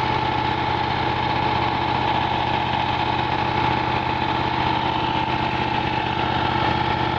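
Kohler 20 HP V-twin engine of a Miller Legend 302 welder-generator running steadily, held at 1800 RPM, with a steady high whine over the engine drone.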